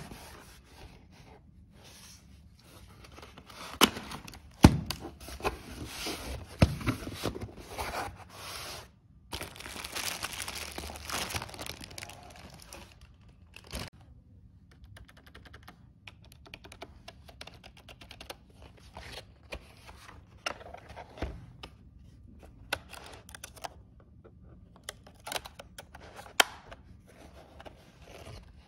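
Unpacking noises: a cardboard box and its packing handled, with plastic wrapping crinkling and tearing for a few seconds in the middle. Scattered clicks and knocks come as a keyboard and mouse are taken out and set down.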